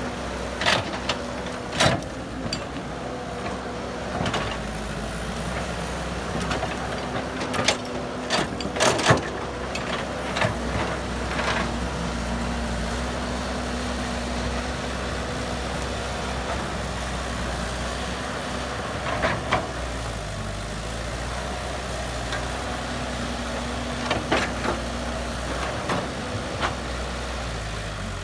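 Heavy diesel machinery engine running steadily, with sharp knocks every few seconds, loudest around nine seconds in.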